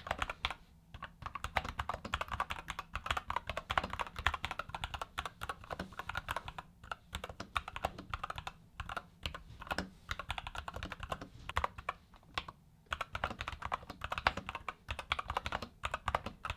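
Typing on an IQUNIX ZX75 Sunset Ponder 75% mechanical keyboard fitted with IQUNIX Little Prince switches: a quick, continuous run of keystroke clacks, broken by a few short pauses.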